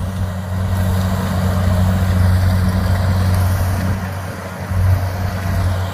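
Kubota DC70 rice combine harvester running steadily as it cuts and threshes rice: a low diesel engine hum with a broad rushing noise of the machine over it, dipping briefly about four seconds in.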